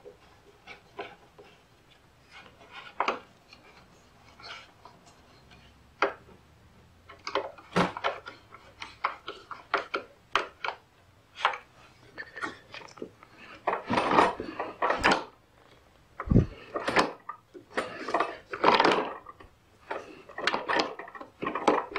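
Hand screwdriver driving screws into a 3D-printed plastic axle bracket on a push mower: irregular clicks and scraping turns of the screws. The sounds are sparse at first and grow busier and louder in the second half.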